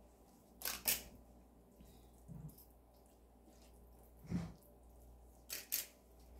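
A few soft clicks and taps, about six in all with the loudest pair about a second in, from a utensil and gloved hand spreading egg salad over slices of white bread, over a faint low hum.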